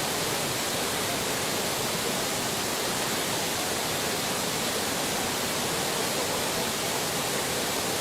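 Rushing floodwater: a steady, unbroken roar of fast-flowing water.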